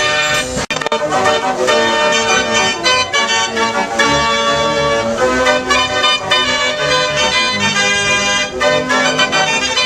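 Organ music with a brassy tone, most likely a mechanical fairground organ playing a tune. The sound briefly cuts out under a second in, then the music carries on.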